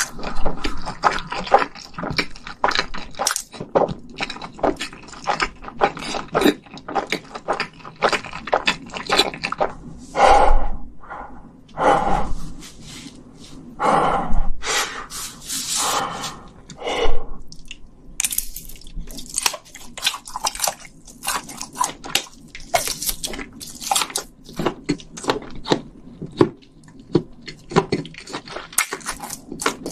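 Close-miked mouth sounds of a person eating spicy fire noodles: wet chewing and smacking with many small clicks, and several louder, longer sounds about ten to seventeen seconds in.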